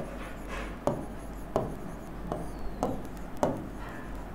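A pen writing on a board: a series of short taps and scratches, one with each stroke, roughly one every two-thirds of a second.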